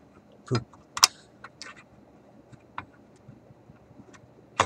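Small metal parts and springs clicking and rattling as a spring-loaded piece of a tube radio's tuning mechanism is worked into place by hand. There is a sharp click about a second in and another near the end.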